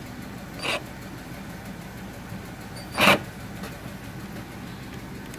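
Faint steady hum with two brief handling noises, a soft one just under a second in and a louder one about three seconds in.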